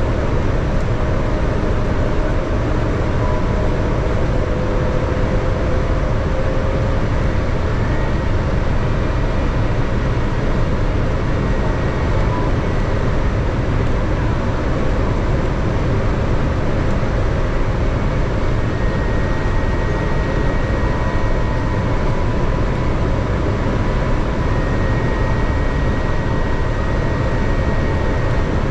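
Steady cabin noise of a Boeing 787-10 on descent, heard at a window seat beside the wing: the hum of its Rolls-Royce Trent 1000 engines under the rush of airflow, with faint thin whines that come and go.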